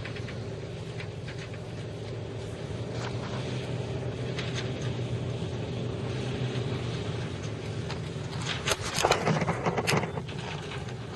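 Chevrolet utility pickup truck's engine running steadily as the truck drives slowly over a dirt lot, with a brief burst of clattering knocks about nine seconds in.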